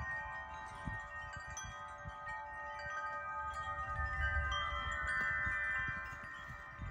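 Tubular metal wind chimes ringing, many long tones overlapping and sustaining.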